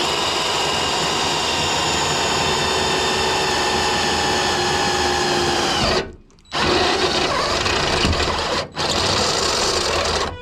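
Craftsman electric drill running under load as it bores through a car's steel bumper, with a steady motor whine. It stops for about half a second some six seconds in and again briefly near nine seconds, then runs on.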